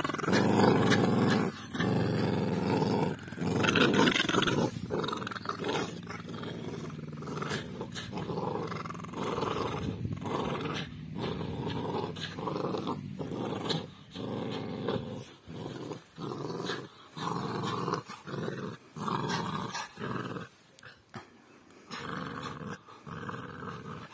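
An American Staffordshire terrier puppy and a border terrier play-growling while tugging on a rope toy. The growling is loudest and steady for the first few seconds, then comes in shorter bouts with brief gaps.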